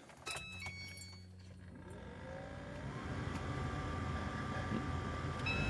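VAZ-2114 heater fan motor switched on and spinning up: its whine rises in pitch over a second or so, then holds steady with a growing rush of air through the ducts. It does not give the whistle it made in the frost.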